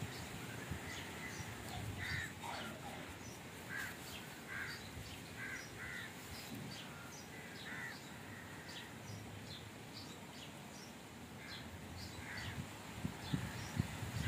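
Birds calling: a run of short repeated calls from about two seconds in to about eight seconds in, over fainter high chirps. A few low thuds near the end.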